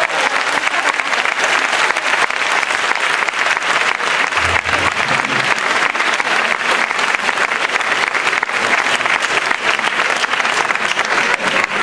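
Audience applauding steadily, the many hands clapping as one dense patter.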